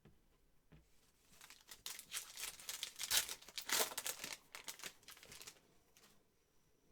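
A trading card pack's wrapper is crinkled and torn open by hand, with a dense crackle that swells for a few seconds and then stops.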